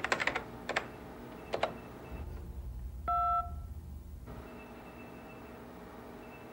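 Computer keyboard keys clicking in a few quick strokes, then a low electronic hum with one short, loud beep from a wall-mounted keypad control panel about three seconds in.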